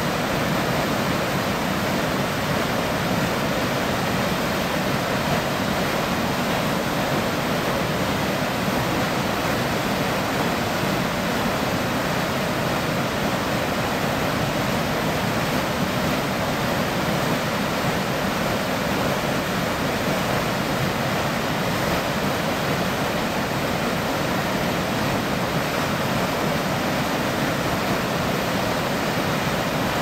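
Whitewater of a mountain stream rushing over and around boulders, a steady, unbroken rush of water.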